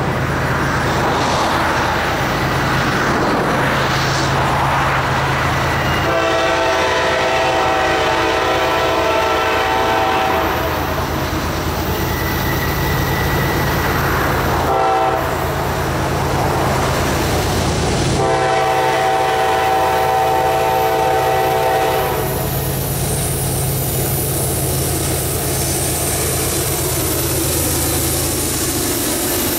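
Air horn of a Kansas City Southern GE ES44AC diesel locomotive leading an intermodal freight train, sounding for a grade crossing: a long blast, a brief one and another long one, over the steady drone of the diesel engines. Near the end the locomotives pass close by and the wheel and engine noise rises.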